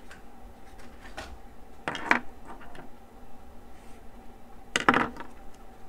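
Felt-tip marker scratching on paper in short strokes as a heading is written. Two short, louder sounds come about three seconds apart, and a faint steady hum runs underneath.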